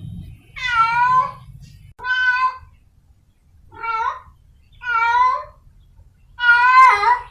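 Stray domestic cat in heat giving mating calls: five drawn-out meows about one every second and a half. The last is the longest and loudest, with a wavering pitch.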